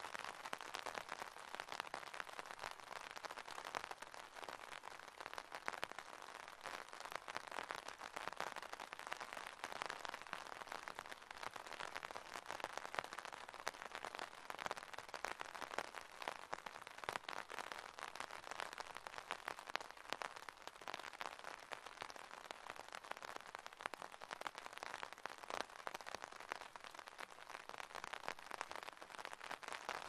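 Soft, steady rain: an even hiss of many small drops pattering, with no letup.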